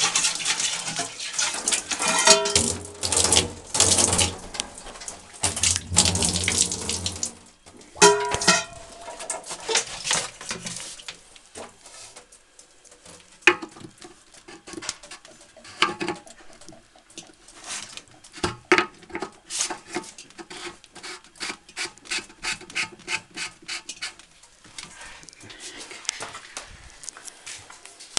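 Water running from a shower hose and splashing over the plastic body of a cold fog generator in a bathtub; it stops about seven and a half seconds in. Then comes a long run of small knocks and clicks as the wet unit is handled.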